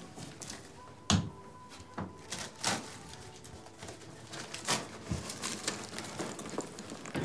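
Handling sounds: irregular knocks, clicks and rustles as items are picked up off the floor and put into a leather bag.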